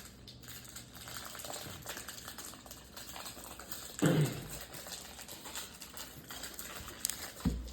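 Stiff cardboard trading cards being handled and slid one behind another, a steady patter of small clicks and rustles. A brief voice sound comes about four seconds in, and a soft thump near the end.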